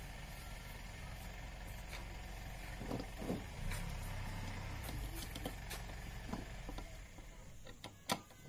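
Steady low background rumble, with a few light metallic knocks and clicks as a car starter motor is lifted, turned over and handled on a metal stand. The rumble fades out near the end, and a sharp metal click comes just before the end.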